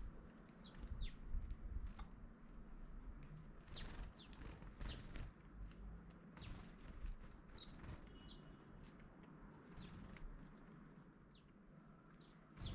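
Small garden birds calling: short, high chirps that slide downward in pitch, scattered one or two a second, over a faint low rumble.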